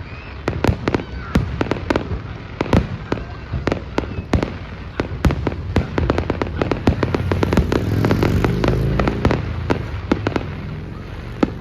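Fireworks display: a dense, rapid string of sharp bangs and crackles, several a second, with a louder low rumble swelling up about seven seconds in and fading again near the end.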